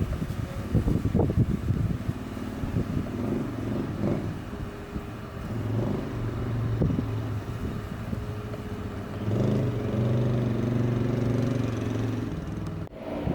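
A motor vehicle's engine running steadily with a low hum, over rumbling wind on the microphone in the first few seconds.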